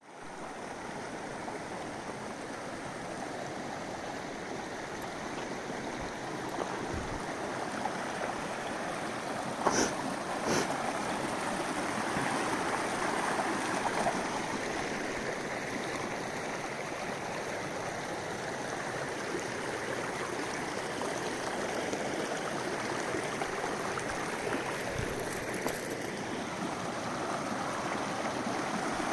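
Snowmelt stream rushing steadily, with two brief clicks about ten seconds in.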